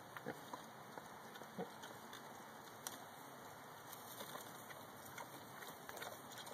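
Pot-bellied pig rooting and chewing leaves on the ground: scattered faint crunches and rustles over a steady hiss.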